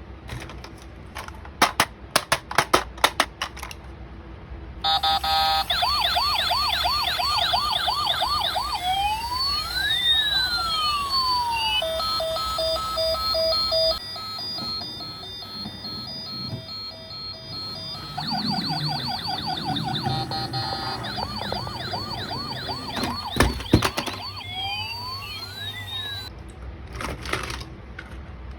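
Electronic siren sound effects from a battery-operated toy: fast warbling chirps, then sweeping rising and falling wails and a steady beeping pattern, and the cycle starts again. A run of sharp clicks comes before the siren starts and again near the end.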